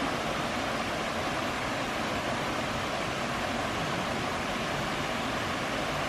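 Steady rush of water spilling over a low stepped river weir.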